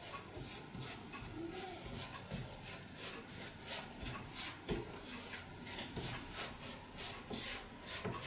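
Silicone spatula scraping and stirring flour and liquid in a stainless steel bowl, working them together into a rough dough. The scrapes come in a steady rhythm of about three a second.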